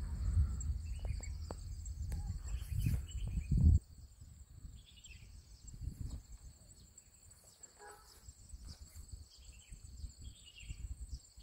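Steady high drone of insects with scattered short bird chirps. A low rumble on the microphone runs for the first few seconds and ends in a thump about four seconds in.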